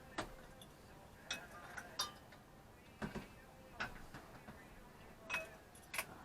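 Hand tools, a spanner on a nut and bolt, clicking and clinking against metal engine parts as the alternator mounting is worked on. The sharp clicks come irregularly, about eight in six seconds.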